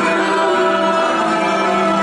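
Live music: a youth choir singing with instrumental accompaniment, the voices holding long, steady notes.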